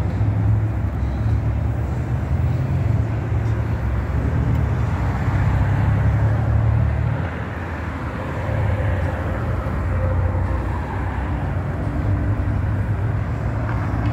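Road traffic noise from cars driving along a wide multi-lane boulevard, a steady wash of sound with a heavy low rumble.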